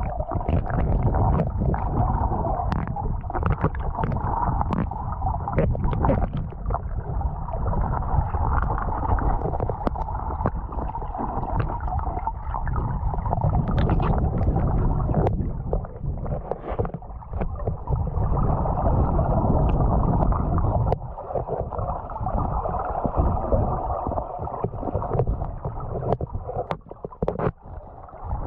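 Flowing river water heard from under the surface: a steady muffled rush and rumble, with scattered sharp clicks and knocks of stones on the riverbed.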